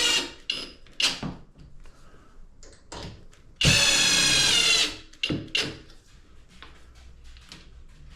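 Power drill driving a screw to fix a shower door's aluminium frame: one steady run of about a second and a half a few seconds in, with the tail of another run at the very start. Short clicks and knocks of handling come between.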